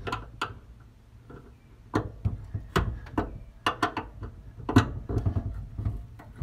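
Irregular sharp clicks and knocks, bunched in quick runs of a few a second, from the jack bed-mount hardware being handled and tightened down.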